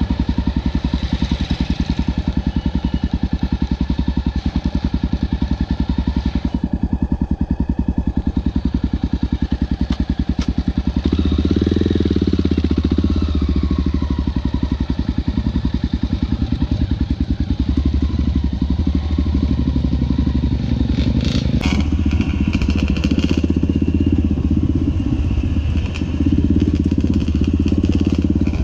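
Single-cylinder four-stroke Honda XR dirt bike engine running under way on a dirt trail, heard from on the bike. About eleven seconds in the throttle opens with a short rising rev, and the engine stays louder for much of the rest.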